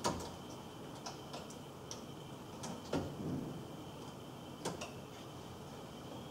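Test-lead crocodile clips and probes being clipped onto and handled on cable ends in a consumer unit during a continuity test. A scattering of sharp clicks and small plastic knocks, loudest at the very start and about three seconds in.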